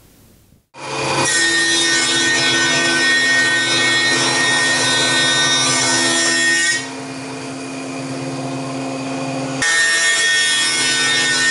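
Carbatec CTJ-381X 15-inch thickness planer with a helical cutterhead, running and planing a board: a loud, steady cutting sound with a constant high whine over the motor hum. It starts abruptly after a brief silence, drops sharply in level about seven seconds in, and comes back up just as sharply about two seconds later.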